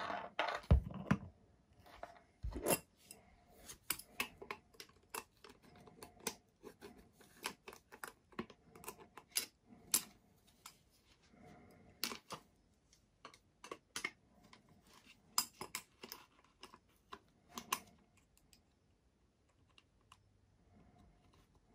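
Scattered light clicks and taps, irregular, about one or two a second, from hands handling the small parts of a 90 mm electric ducted fan unit. They stop a few seconds before the end.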